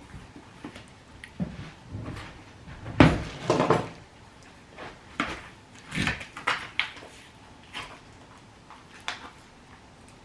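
Kitchen clatter of plating food: a plate and utensils knocking and clinking in scattered short knocks, the loudest about three seconds in.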